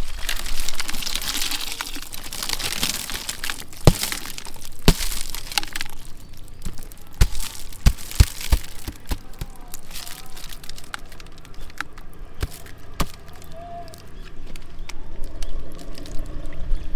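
Water pouring and splashing for the first few seconds, then a run of sharp, irregular knocks and cracks.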